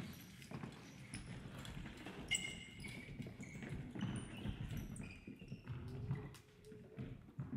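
Scattered footsteps and light knocks of shoes and unicycles on a wooden sports-hall floor, with a few short squeaks.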